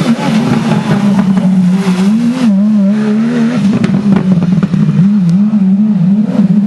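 Porsche 911 GT3 rally car's flat-six engine running hard at fairly steady revs, its pitch wavering up and down with small throttle changes, with a few sharp clicks mixed in.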